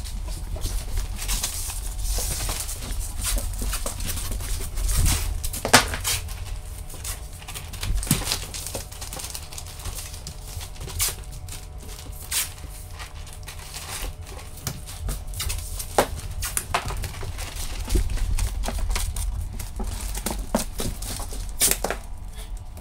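Rustling and crinkling of a synthetic underlayment sheet being pressed, folded and taped over a countertop edge, with scattered sharp handling clicks and knocks.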